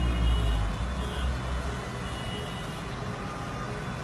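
Cars driving through deep floodwater: a low engine rumble, strongest in the first second and a half, over a steady rush of churned water.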